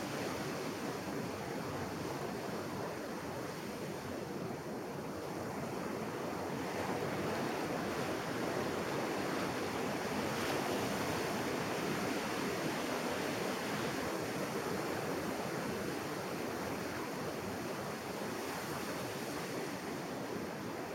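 Ocean surf breaking and washing up on a sandy beach, a steady rush that swells a little louder midway, with some wind buffeting the microphone.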